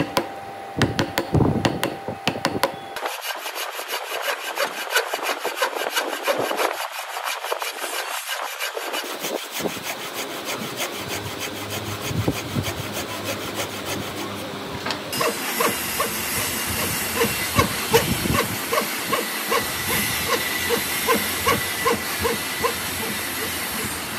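A wooden frame saw cutting an angled kerf into a hardwood block, in steady back-and-forth rasping strokes of about two to three a second that grow brighter and more even about halfway through. In the first few seconds there are a few knocks and scrapes from a chisel clearing waste from a notch.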